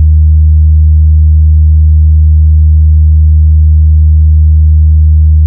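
A very loud, steady deep bass tone held without a break: an electronic speaker-check test tone in a DJ sound-testing remix, made to push the speakers' bass.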